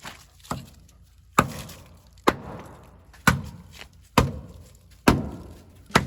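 A steady series of sharp blows, about one every second: a lighter one, then six hard ones. The rhythm is that of someone striking with a hammer-like hand tool.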